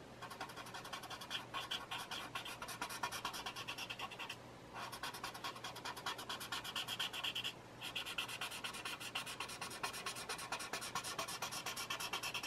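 Paper blending stump scrubbing graphite shading on a paper tile: quick back-and-forth rubbing strokes that smudge the pencil shading, pausing briefly twice, about four and a half and seven and a half seconds in.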